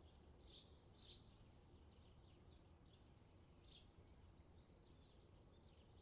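Faint countryside ambience: small birds chirping, with three louder short chirps, two near the start and one past the middle, and softer ones between. A steady low rumble runs underneath.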